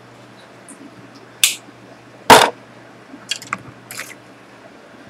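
Small metal items being handled on a jeweler's soldering board: a few light, sharp clicks and one louder knock about two seconds in.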